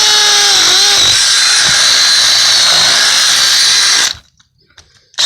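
Makita cordless hammer drill with a 14 mm masonry bit drilling into old mortar pointing, running at full speed with a steady high-pitched whine. It stops after about four seconds and starts again near the end.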